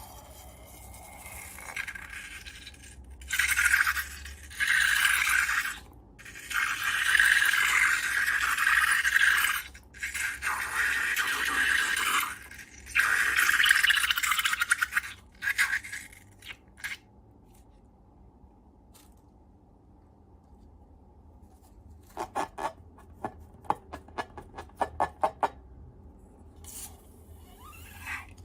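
Repeated scraping and rubbing in bursts of one to three seconds, then a quiet stretch and a quick run of clicks near the end.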